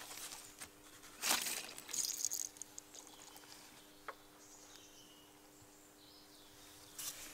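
Gloved hand working the small valve on a brake pressure bleeder's fluid hose: a few short scraping and rustling handling noises and a small click, over a faint steady hum.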